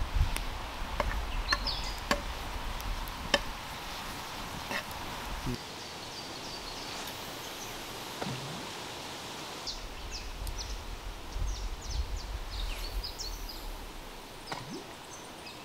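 Outdoor ambience: gusts of wind buffeting the microphone, with short high bird chirps and scattered small clicks.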